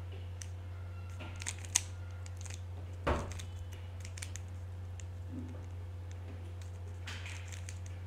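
Plastic Rubik's cube being turned quickly by hand: scattered clicks and clacks of the layers snapping round, with one louder knock about three seconds in. A steady low hum lies underneath.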